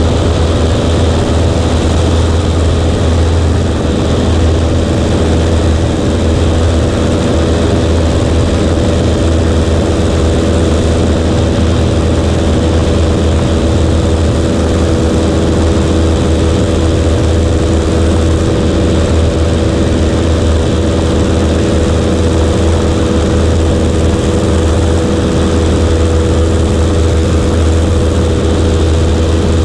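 Cessna 140A's piston engine and propeller running at a steady power setting, a loud, unchanging drone with no rise or fall in pitch.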